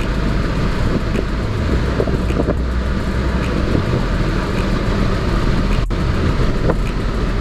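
Steady engine rumble with wind noise on the microphone, as while travelling in a motor vehicle or boat.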